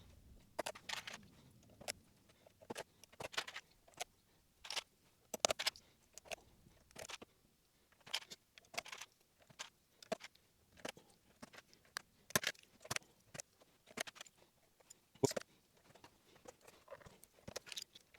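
Plastic keycaps being pressed one by one onto the Alps switch stems of a NeXT non-ADB keyboard: irregular sharp clicks and snaps, one to three a second, some in quick pairs.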